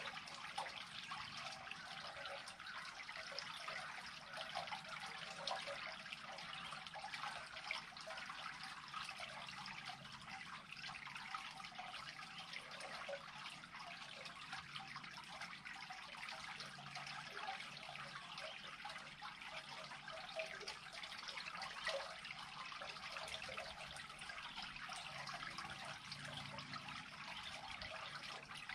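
Water trickling steadily as a creek pool drains through an unclogged culvert, with small splashy flickers in the flow.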